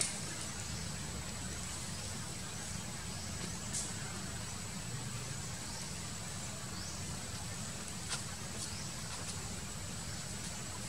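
Forest ambience: a steady high-pitched insect drone with faint, repeated rising chirps over a low rumble, broken by a few brief sharp clicks.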